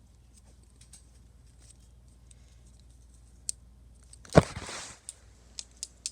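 A folding multi-tool being handled: scattered small clicks, then a sharp knock about four seconds in with a brief rustle after it, and a few more clicks near the end.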